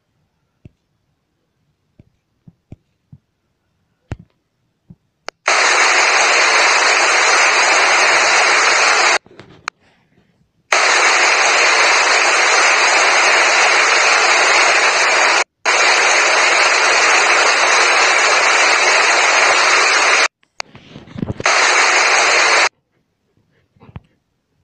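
A loud, steady hiss of static-like noise that switches on and cuts off abruptly four times, with faint scattered clicks in the gaps.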